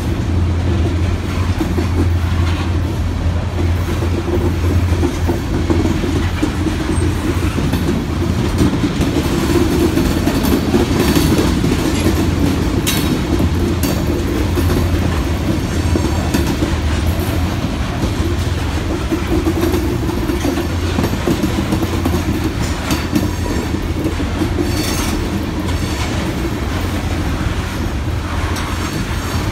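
Loaded covered hopper cars of sand rolling past at close range: a steady heavy rumble of steel wheels on rail, with sharp clacks now and then as the wheels pass over the track.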